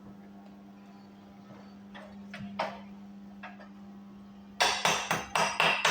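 A few light taps, then about two-thirds of the way in, quick repeated metal-on-metal strikes, about four a second: a chipping hammer knocking slag off a fillet weld laid with a 6013 rod. A low steady hum runs underneath.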